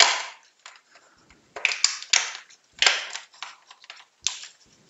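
Stiff clear plastic blister packaging crackling and clicking in the hands as earbuds are pulled out of its tray, in a few short bursts with quiet gaps between.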